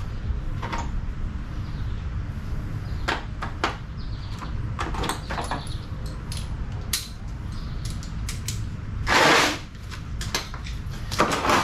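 Scattered clicks and light knocks of metal tools and hardware being handled: a socket wrench, sockets and bolts. A brief rushing noise comes about nine seconds in, over a steady low rumble.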